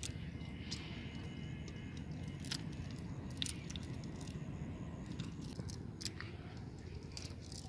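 Wet cast net being handled on mud as small fish are picked from its mesh: soft squelches, rustles and scattered small clicks at irregular intervals over a steady low rumble.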